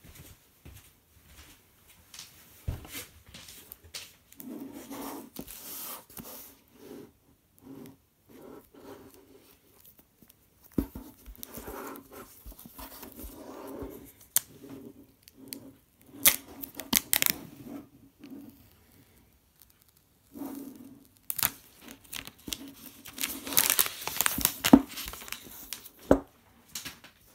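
Plastic shrink-wrap being torn and peeled off an iPhone 8 retail box: crinkling film with sharp crackles and small taps and scrapes of fingers on the cardboard, coming in bouts with short pauses and loudest near the end.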